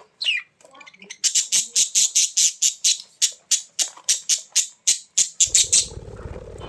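A bird giving a rapid run of short, harsh squawks, about five a second, stopping near the end; a low rumble comes in over the last second.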